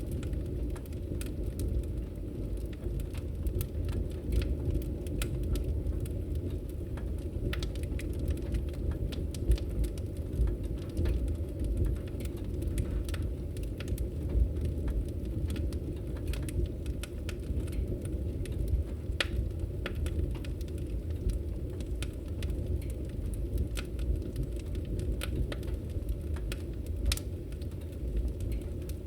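Wood logs burning in a fireplace: a steady low rush of flame with many scattered, irregular crackles and pops.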